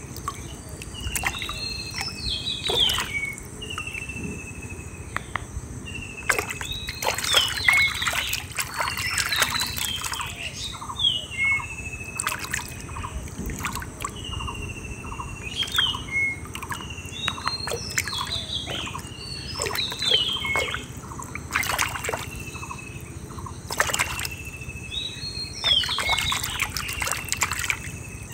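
Hand sloshing and splashing in shallow muddy water, in many short irregular splashes. A bird calls over it every few seconds, each call a short, slightly falling whistle followed by a few quick rising notes.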